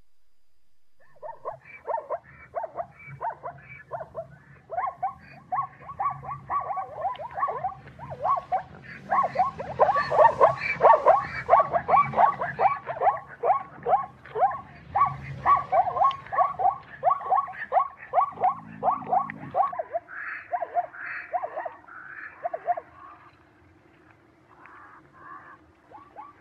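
Zebra calling: a long run of short, barking yelps, a few a second, that thins to a few scattered calls near the end.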